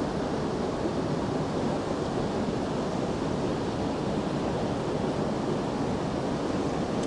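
Steady rushing of a fast-flowing river current, an even noise that does not change.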